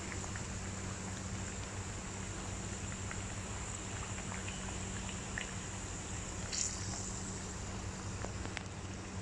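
Steady background hum and hiss, with a few faint clicks.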